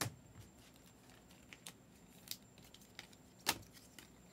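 Trading cards being handled and sorted by hand: a few scattered soft clicks and taps of card edges, the sharpest right at the start and about three and a half seconds in.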